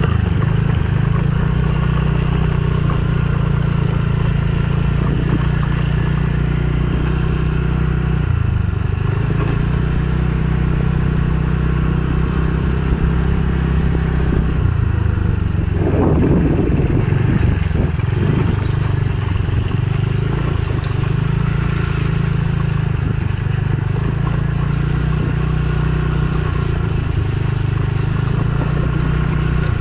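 Motor scooter engine running steadily while riding, with road and wind noise; the engine note dips and picks up again twice, about a third of the way in and again around the middle, where there is a brief burst of noise.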